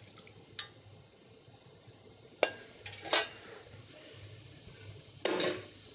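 A few clinks and knocks of metal kitchenware, a saucepan and conical strainer against a stainless steel mixing bowl: two sharp knocks about two and a half and three seconds in, and a louder short rattle near the end.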